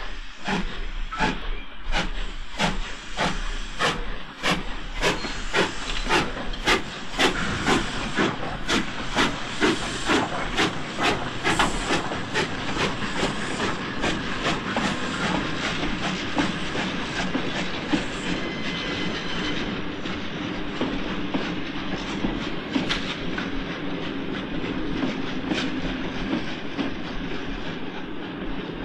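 S.N.C.F. 'Pacific' No. 231 K 45, a four-cylinder compound steam locomotive, starting a passenger train. Its sharp exhaust beats quicken from about two to nearly four a second. About halfway through they merge into a steady rush of exhaust and rolling wheels as the train gathers speed.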